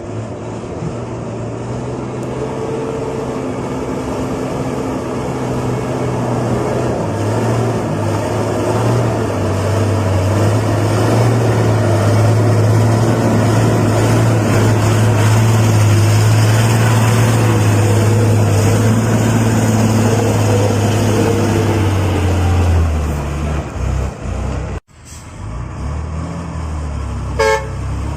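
Heavy dump truck's diesel engine running under load with a steady low hum, growing louder over the first half and easing off about 23 seconds in. After a sudden break, a vehicle horn gives a short toot near the end.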